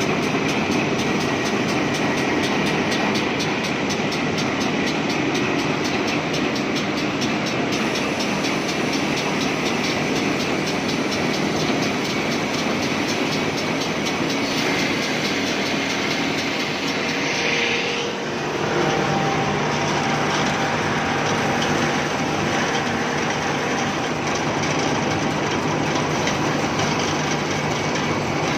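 Wood moulding machine running, its cutters shaping teak: a loud, steady mechanical noise. About two-thirds of the way through it dips briefly and settles into a slightly different, lower steady hum.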